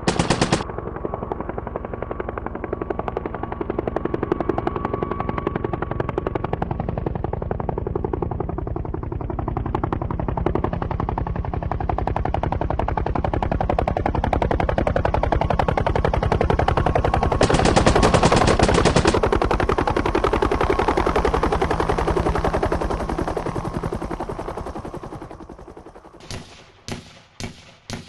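Long, rapid bursts of machine-gun fire from a helicopter's door-mounted gun, loudest around the middle. Near the end it fades into separate sharp pops about two a second.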